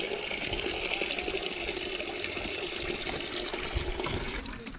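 Water splashing in a bucket as something is washed in it, a steady sound that dies away near the end.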